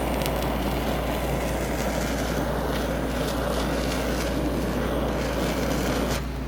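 Steady rushing of flame with a few faint crackles as rosemary and butter are burned, the only heat the raw steak gets; it cuts off abruptly about six seconds in.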